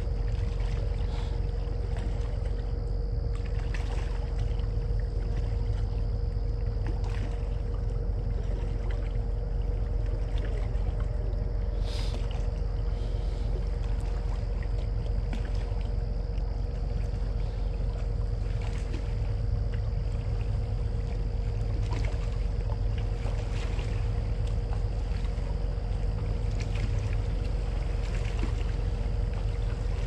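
Distant ship's machinery running across the river: a steady low rumble with a constant hum above it and a faint, steady high hiss.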